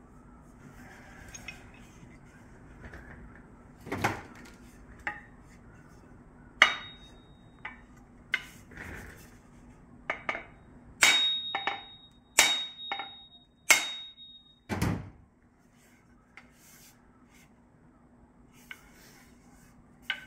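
About a dozen sharp, irregular knocks, some followed by a short high metallic ring, as a 4½-pound tazzie axe head is driven down onto its new wooden handle. The blows come in the middle of the stretch and are loudest in a quick cluster near the end.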